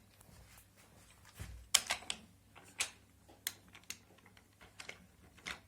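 Toy trains and play pieces being handled: scattered sharp clicks and light knocks, about seven in all, with a soft low thump about a second and a half in.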